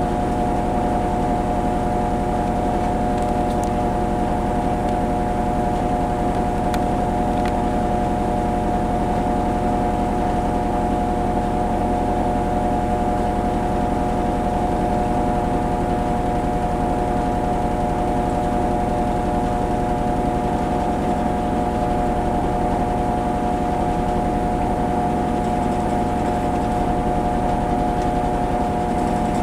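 Kenmore Series 500 high-efficiency washing machine in its spin cycle: the drum spinning at a steady speed, with a motor whine that holds one pitch.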